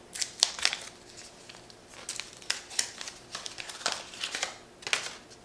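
Wax-paper wrapper of a baseball-card wax pack being torn open and crinkled by hand, a run of irregular sharp crackles.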